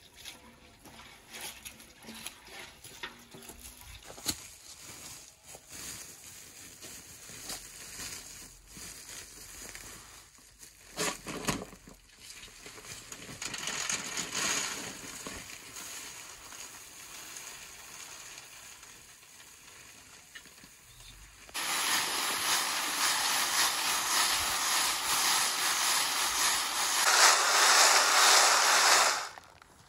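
Dried berries being sifted in a wooden-rimmed sieve: a steady dry rustling of berries and grit shaken through the mesh onto a plastic sheet, which starts abruptly about two-thirds of the way in, grows louder near the end and stops suddenly. Earlier, quieter pouring of berries from a cloth bag into the sieve.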